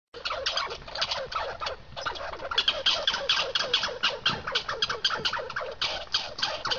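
Squirrel calling in a rapid, continuous run of short chirping barks, about five or six a second, with a brief pause about two seconds in: agitated chatter during a confrontation between two squirrels.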